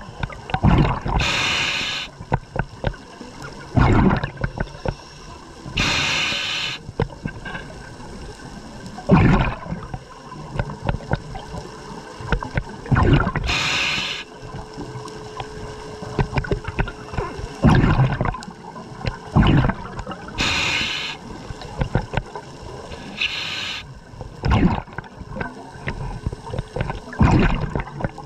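Scuba diver breathing through a regulator underwater: a hiss on each inhalation alternating with a rumbling gurgle of exhaled bubbles, about one breath every six to seven seconds.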